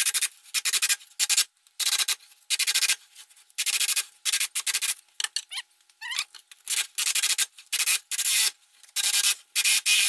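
Cordless jigsaw cutting round holes through plywood, its blade rasping in short stop-start bursts, two or three a second, with brief gaps between.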